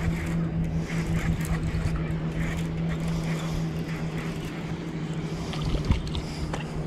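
A boat motor runs with a steady, even hum that holds one pitch throughout, and there is a sharp knock about six seconds in.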